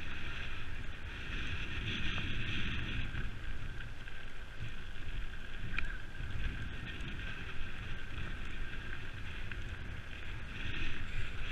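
Mountain bike rolling along a gravel track, with tyre noise and wind buffeting the handlebar-mounted camera's microphone in a steady low rumble and hiss.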